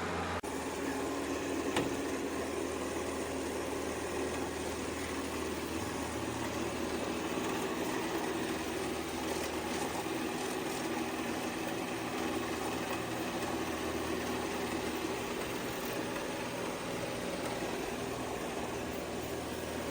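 Shark PowerDetect robot vacuum's motor running steadily, a mechanical hum over a whoosh of airflow, with a single click about two seconds in.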